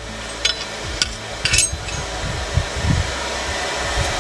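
A few light metallic clinks as metal pieces are handled at the forge, over the steady rush of the forge's air blast.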